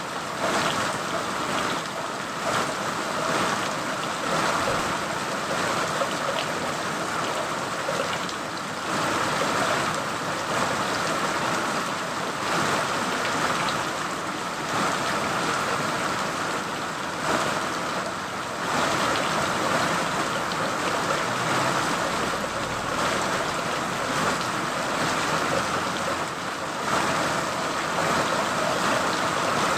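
Steady, continuous rain, an even hiss of falling drops with small swells in loudness.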